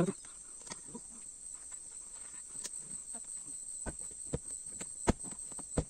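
Steady high-pitched chirring of insects in the fields, with a few scattered sharp clicks and light knocks over it.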